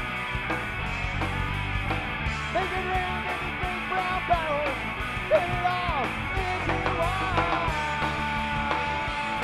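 Live rock band playing: electric guitar, bass guitar and drum kit, with a lead line that bends in pitch and then holds one long note near the end.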